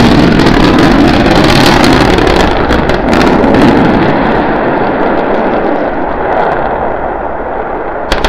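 SpaceX Starship SN9 prototype rocket exploding as it crashes on its landing attempt: a loud, deep rumble that slowly dies away, with a sharp crack near the end.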